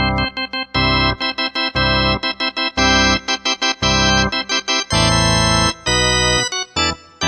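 Casio CTK-4200 arranger keyboard playing a demo of one of its built-in sustained, organ-like tones: a run of short, sharply cut chords and quick notes, with a longer held chord about five seconds in.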